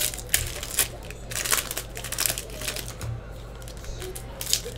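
Foil wrapper of a football trading-card pack crinkling in short, irregular crackles as hands pull the pack open.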